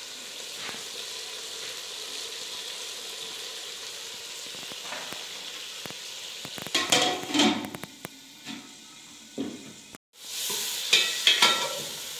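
Fish pieces frying and sizzling in a pot over a wood fire, with a metal ladle stirring and scraping against the pot in loud strokes, one group about seven seconds in and another near the end. The sound cuts out briefly shortly before that last group.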